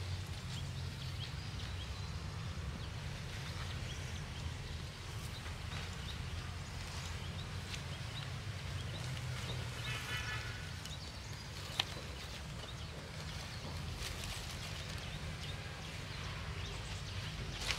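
Cauliflower leaves rustling and a wicker basket creaking and scraping as the cut plants are packed in and the basket is lifted, over a steady low rumble. A brief pitched call sounds about ten seconds in, and there is a sharp click a little after.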